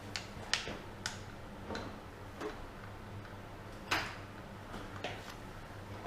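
Irregular light clicks and taps of metal parts and hand tools being handled while motorcycle brake parts are taken off, with one louder tap about four seconds in, over a steady low hum.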